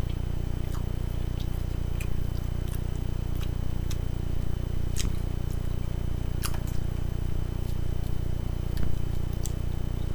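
Close-miked chewing and eating of a spinach salad, with scattered sharp clicks and mouth smacks, over a steady low hum.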